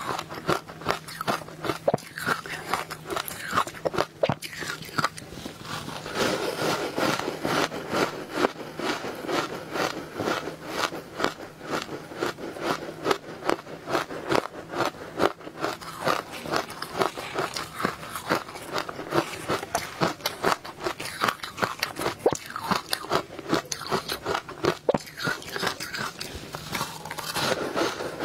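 Close-miked biting and chewing of powdery frozen ice coated in matcha powder: a dense, irregular run of crisp crunches.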